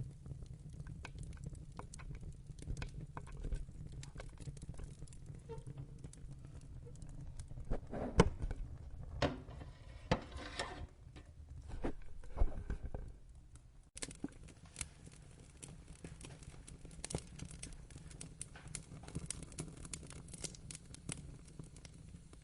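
Wood fire crackling, with a steady low rumble of flames under many small snaps and pops; a run of louder pops comes a little past the middle.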